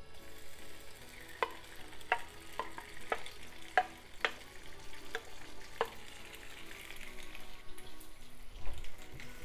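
Raw chicken strips slid into hot oil in a non-stick frying pan, sizzling faintly. About eight sharp knocks come between roughly one and six seconds in, as the spatula scrapes and taps the chicken off the dish into the pan.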